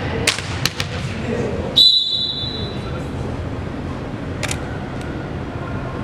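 Referee's whistle: one short, shrill, steady blast about two seconds in, the loudest sound here, over the hum of a gym. A single sharp smack follows a couple of seconds later.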